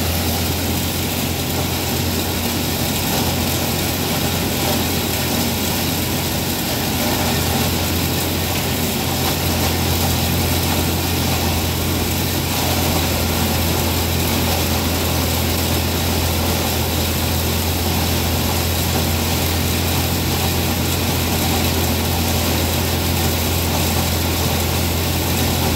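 Grinder-mixer grinding ear corn (cob corn) fed in by its conveyor: a loud, steady machine drone with a strong low hum, slightly louder from about seven seconds in.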